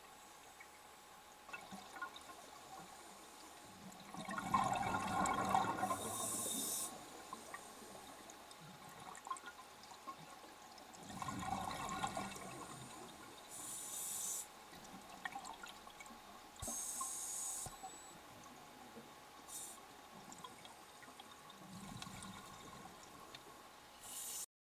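Scuba regulator breathing underwater: two surges of exhaled bubbles rumbling past, with short hissing inhalations through the regulator between them.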